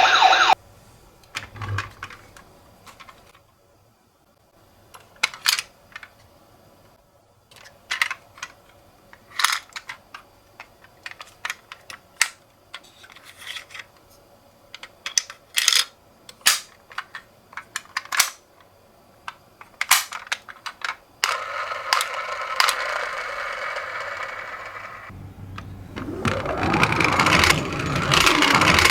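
Toy minicars clicking and clattering in irregular sharp clacks for about twenty seconds, followed by a steady rolling whir for a few seconds, then a loud wailing ambulance siren near the end.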